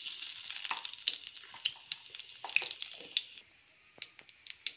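Cumin seeds sizzling in hot mustard oil as they are tempered: a steady high hiss packed with sharp crackling pops that drops to a quieter hiss about three and a half seconds in, with a few last pops near the end.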